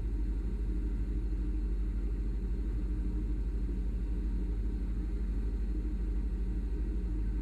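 Steady low machine hum and rumble with a fast, even pulsing.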